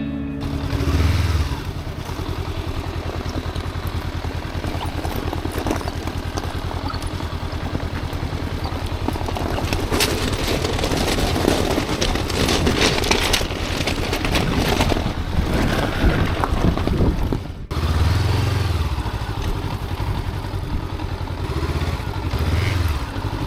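Motorcycle engine running while riding, with road and wind noise. Dense knocking and rattling through the middle stretch fit riding over rough, off-road ground. A brief break comes about 18 s in, after which the riding sound carries on.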